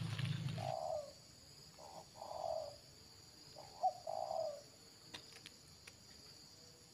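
Spotted dove cooing: a run of low coos, each a short note followed by a longer one, repeated three times. A low rumble stops under a second in, and insects chirr steadily throughout.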